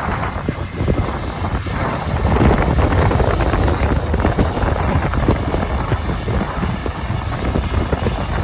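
Wind buffeting the microphone over a steady low rumble of running farm machinery.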